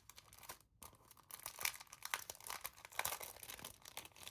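Stationery packaging crinkling and rustling as it is handled and opened, in quick irregular crackles with a few louder ones in the middle.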